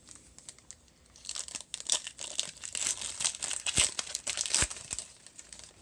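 Trading-card pack wrapper crinkling and tearing as a Mosaic basketball card pack is opened by hand, a dense crackle starting about a second in and stopping shortly before the end.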